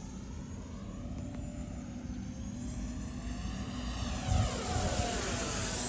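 Freewing F9F-8 Cougar RC jet's electric ducted fan whining in flight and passing by, loudest about two-thirds of the way through, with the sound sweeping down in pitch as it goes past.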